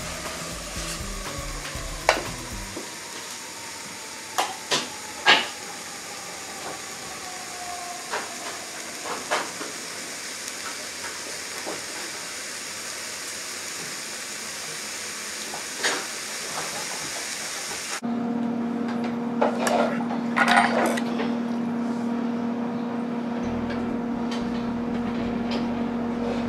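Steak and shrimp sizzling inside a closed Chefman panini grill press: a steady hiss with a few sharp ticks. About two-thirds of the way in, it cuts to a steady low hum with a few knocks and clinks.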